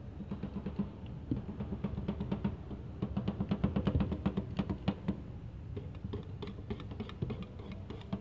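Two metal spatulas chopping and tapping rapidly against a round steel ice-cream pan, cutting strawberry into the freezing cream mix for rolled ice cream. A fast, irregular clatter of taps, busiest in the middle.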